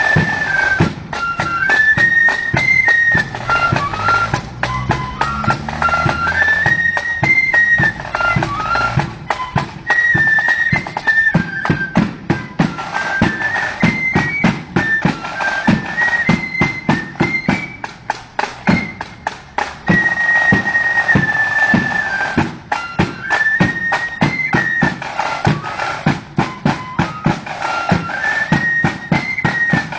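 Marching flute band playing a tune: a high flute melody over fast, dense snare-drum strokes and bass-drum beats.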